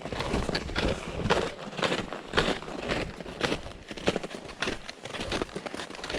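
Footsteps of a hiker walking downhill on a rocky trail, crunching about twice a second, with rustle and knocking of the camera.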